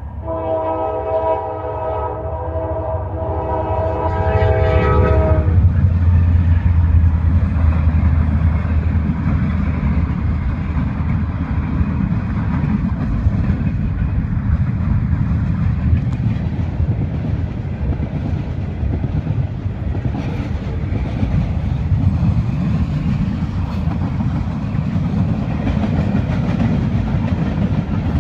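Norfolk Southern freight train's locomotive air horn sounding one long chord for about five seconds, then the freight cars rumbling steadily past the crossing with wheels clacking over the rail joints.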